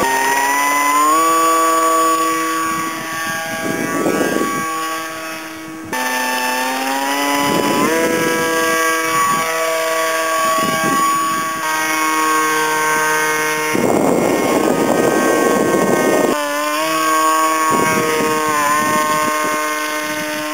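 Homemade foam RC plane's motor and propeller whining, the pitch gliding up as the throttle opens for takeoff, then shifting up and down in flight. Gusts of wind rumble on the microphone now and then.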